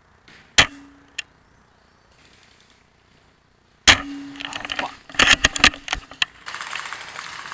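Two shots from an SSG24 spring bolt-action airsoft sniper rifle, each a sharp crack with a brief low ringing tail; after the second, a quick run of sharp mechanical clicks, then rustling handling noise.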